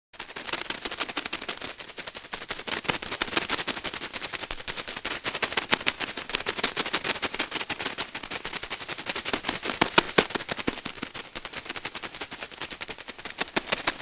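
Dense, rapid, irregular clicking that runs without a break, laid over insect footage as an insect sound, with a sharper cluster of clicks about ten seconds in.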